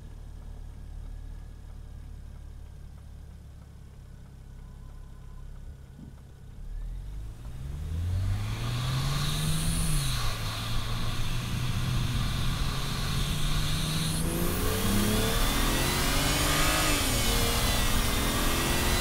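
BMW 335xi's twin-turbo straight-six with a DCI intake, idling, then pulling away about seven seconds in with its pitch rising and dropping at a gear change. From about fourteen seconds it accelerates hard, the intake and turbo noise growing much louder with rising whistles, before another shift a few seconds later.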